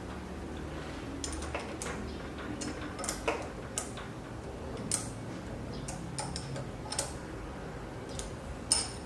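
Light metallic clicks and taps at irregular intervals, the loudest near the end: metal parts and hand tools being handled during machine assembly.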